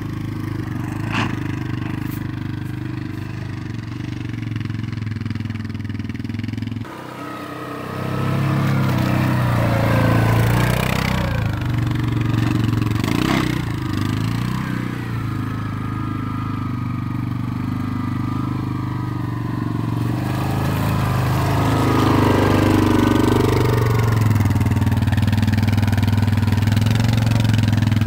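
ATV engine running as the four-wheeler churns along a muddy trail, its note rising and falling with the throttle. The sound breaks off abruptly about seven seconds in and picks up again.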